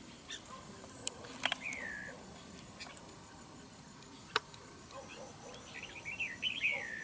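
Red-whiskered bulbuls calling: short chirps and quick phrases that slide down in pitch, with a busier run of song near the end. A few sharp clicks fall in between.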